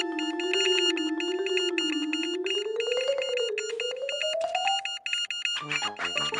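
Electronic cartoon sound effects: rapid, evenly repeating high beeps over a wavering synthesizer tone that slowly rises in pitch, then cuts off about five and a half seconds in, where busier electronic music takes over.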